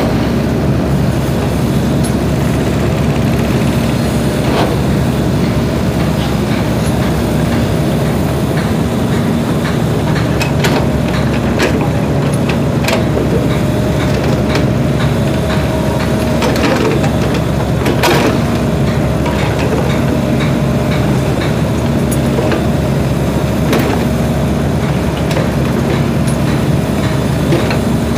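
SANY compact excavator's diesel engine running steadily under hydraulic load as the machine swings and digs, with scattered metallic clanks and knocks from the working excavator, the sharpest about 18 seconds in.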